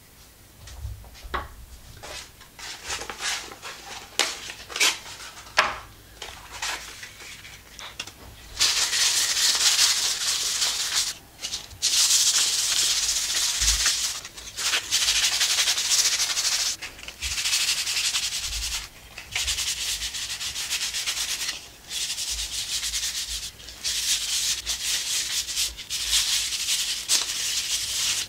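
Sandpaper rubbed by hand along a wooden stick: a few short, separate strokes at first, then, from about eight seconds in, long runs of fast back-and-forth sanding broken by short pauses.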